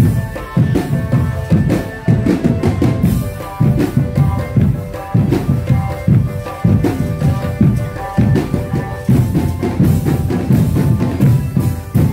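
Drumband playing: drums beating a steady, driving rhythm with a repeating melody line over them.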